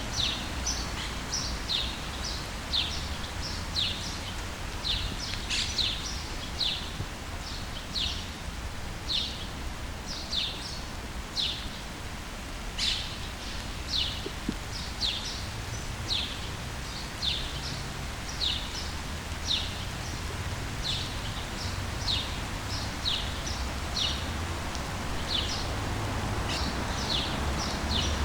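Birds chirping, short falling notes repeated once or twice a second, over the steady hiss of rain, with a low rumble of distant traffic underneath.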